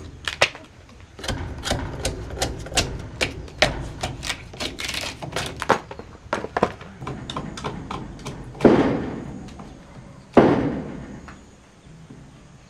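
Repeated sharp blows on wood, about three to four a second for several seconds, followed by two heavy thuds that die away slowly, the first about nine seconds in and the second a second and a half later.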